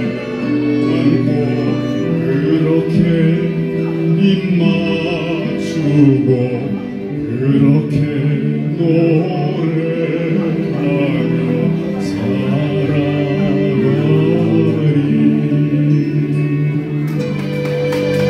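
A classically trained male singer singing a slow song into a microphone over instrumental accompaniment, holding long notes.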